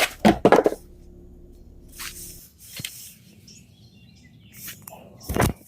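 Handling noises as the belt cover comes off a Troy-Bilt self-propelled mower: a cluster of knocks and scrapes at the start, a few light clicks, and one more loud knock near the end.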